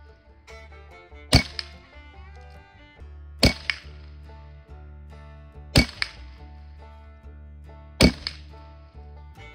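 Four shots from a Ruger 10/22 semi-automatic .22 LR rifle firing Aguila Super Extra hollow points, each a sharp crack, about two seconds apart. Background music plays underneath.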